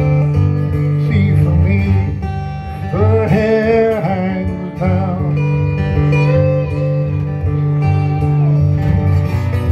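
Lap slide guitar played live with a slide: steady low bass notes ring under a melody that glides between pitches, with a wavering vibrato about three seconds in.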